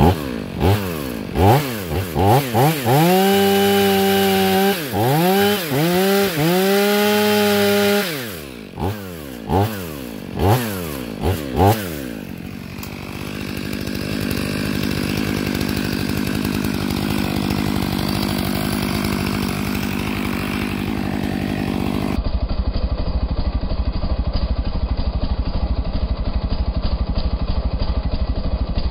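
Stihl MS 500i fuel-injected two-stroke chainsaw revving and cutting through firewood rounds. The engine pitch sags as the chain bites and climbs again between cuts, with quick throttle blips. After about twelve seconds the revving gives way to a steadier, even noise, and about two-thirds through the high end drops away, leaving a low rapid pulsing.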